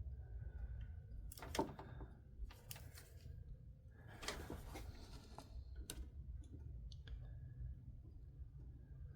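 A few sharp clicks and short scraping rasps of tools and wire being handled while a wire is soldered at a headlight connector, over a steady low hum. The loudest click comes about one and a half seconds in.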